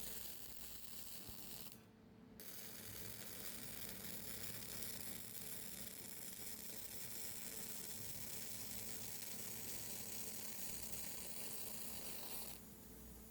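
MIG welding arc crackling and sizzling steadily as wire is fed into the weld. It cuts out briefly about two seconds in, restarts, and cuts out again near the end.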